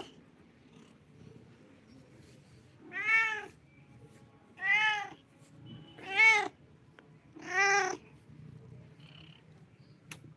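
Kitten meowing four times, each a short rising-then-falling call about a second and a half apart.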